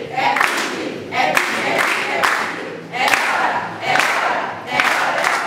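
A group of people singing a birthday song together, clapping in time with a steady beat.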